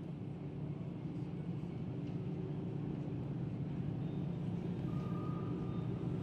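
Opening of an ambient track: a low, rumbling drone swelling slowly, joined about five seconds in by a thin, steady high tone that breaks off and comes back.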